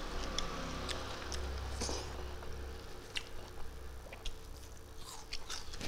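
Close-miked chewing of rice and small fried fish eaten by hand, with scattered wet mouth clicks and lip smacks.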